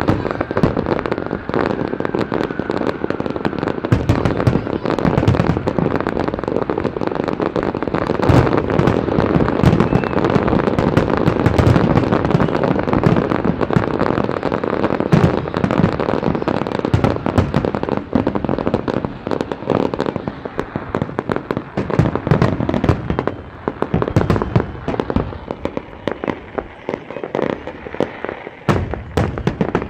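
Fireworks display: a dense, continuous barrage of bangs and crackling, thinning out somewhat after about twenty-three seconds.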